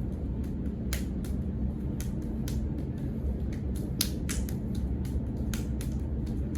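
Sharp, irregular slaps and snaps from karate hand drills, a few a second, as hands and arms strike and block, over a steady low rumble.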